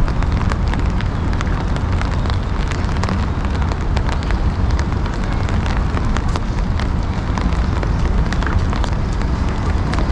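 Steady outdoor background noise with a heavy low rumble and scattered crackles.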